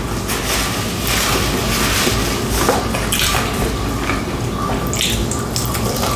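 Close-miked eating of KFC spicy fried chicken wings: irregular, wet chewing and mouth sounds.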